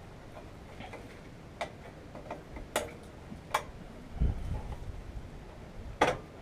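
Hand tools clicking and clinking on metal engine fittings while lines on a Volkswagen engine are being tightened: a few scattered sharp clicks, the loudest near the end, and a dull thump around the middle.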